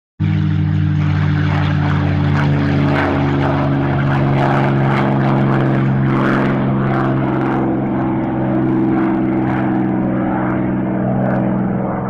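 Aircraft engines running loud and steady, with a low drone under a rushing noise. The sound cuts in suddenly just after the start and loses some of its hiss near the end.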